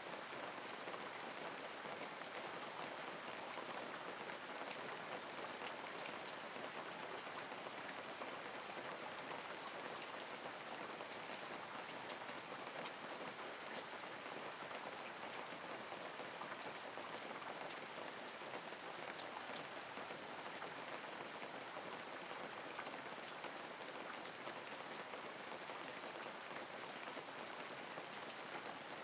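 Light, steady rain with scattered drop patter.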